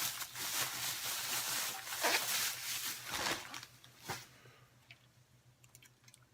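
Packaging rustling and crinkling as a can is unwrapped and handled, stopping about four seconds in.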